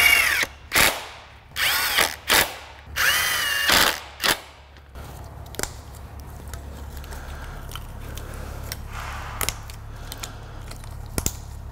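Cordless drill-driver running in about six short bursts, its motor whine rising and falling with each trigger pull, as it runs down the ignition coil bolts on an aluminium valve cover. After about four and a half seconds the driver stops and only a few faint clicks follow.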